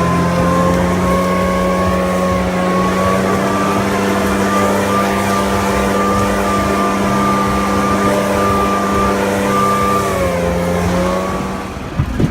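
Small engine running at high, steady revs. Its pitch creeps up slowly, steps down slightly about ten seconds in, then the engine drops away near the end.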